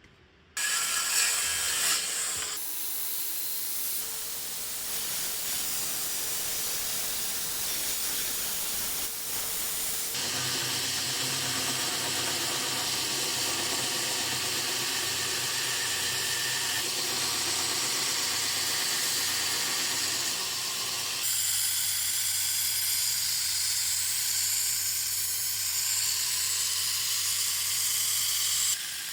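Electric grinder running, its abrasive hissing against steel with a steady motor hum underneath. The sound shifts abruptly several times, as from cut-together clips of the blade being ground.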